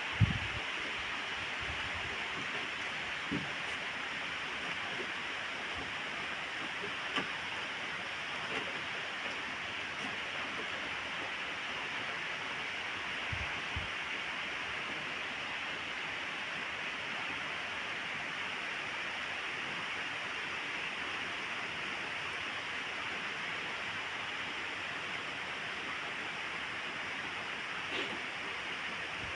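Steady rain falling, an even hiss with a few faint knocks now and then.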